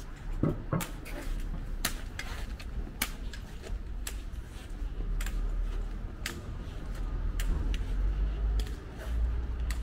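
Footsteps of someone walking, a sharp click about once a second, over a low steady rumble.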